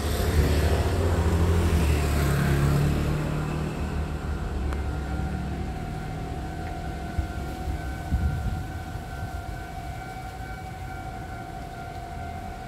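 A motor vehicle's low rumble for the first few seconds. Then, about five seconds in, a level-crossing warning alarm starts sounding a steady tone and keeps on, signalling that a train is approaching.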